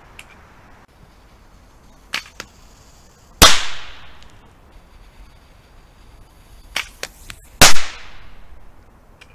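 Two loud explosive bangs about four seconds apart, each echoing off for about half a second: small charges on crossbow darts detonating. About a second before each bang come a couple of faint sharp snaps.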